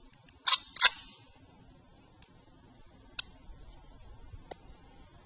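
Two sharp clacks about a third of a second apart from a Ruger Mini-14 rifle being handled and readied, followed by a few faint ticks.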